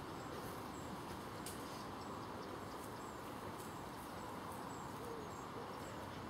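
Quiet outdoor ambience: a steady hiss with a few faint, short high chirps, like distant small birds.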